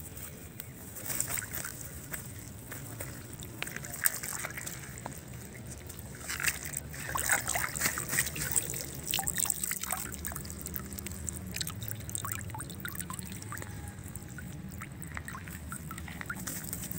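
Water splashing and trickling, with scattered small clicks and knocks that are busiest around the middle. A low steady hum runs underneath.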